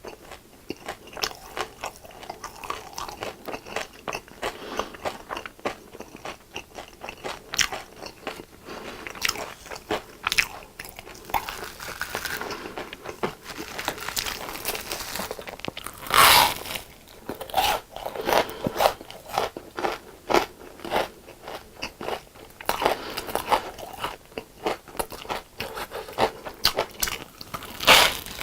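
Close-miked crunchy biting and chewing of fried food, many sharp crunches in quick succession, with a loud bite about halfway through and another near the end.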